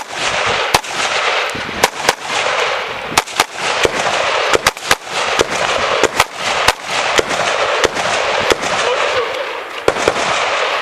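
Rifle fire: a long string of sharp, irregular shots, several a second at times, over a steady loud hiss.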